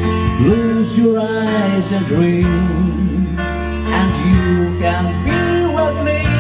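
A man singing a slow ballad into a handheld microphone over a recorded backing track. A held bass line and a soft beat come about once a second.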